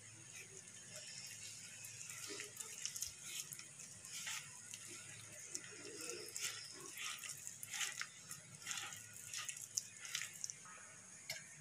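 A bare hand mixing rice flour, wheat flour, ground spices and water into a pakora batter in a bowl, making faint, irregular wet squishing and squelching sounds.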